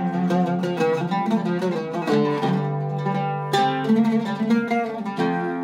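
Iraqi-style Zeryab oud with a cedar soundboard and a wenge-and-maple back, played solo as a melodic run of quick plucked notes. Fewer strokes fall in the middle, and a sharp, bright stroke comes about three and a half seconds in.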